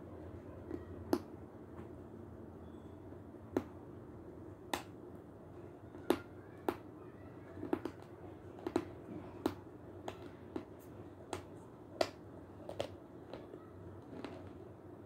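Severski chalk being bitten and crunched between the teeth, close to the microphone: short, dry, sharp crunches at irregular spacing, about one or two a second, over a faint steady hum.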